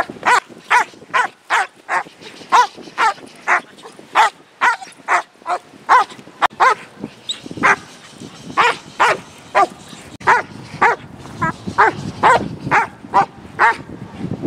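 German Shepherd protection dog barking hard and repeatedly at a decoy in a bite jacket, about two barks a second with a brief pause about halfway: the aggressive barking of a dog in a high state of arousal held back from the attack.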